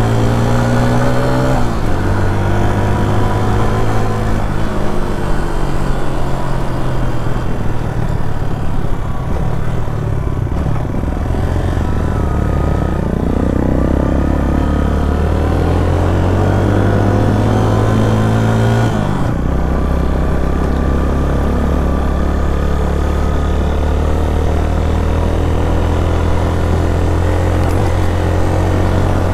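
Suzuki GS 150 SE's single-cylinder four-stroke engine running on the road, its pitch climbing as it pulls and then dropping sharply at each gear change, about three times. Around the middle the pitch rises and falls once.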